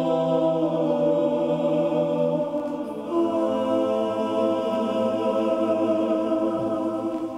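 Vocal group singing long, held chords in harmony. The chord changes once, about three seconds in, and the last chord is held and begins to fade at the very end.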